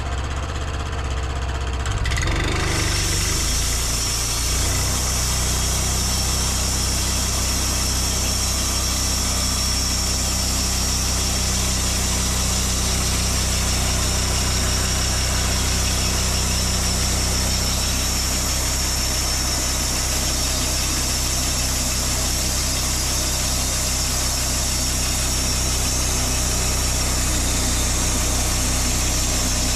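Portable band sawmill running at a steady speed as its band blade cuts a slab from a knotty ash log. A high steady whine and hiss join the engine hum about two seconds in.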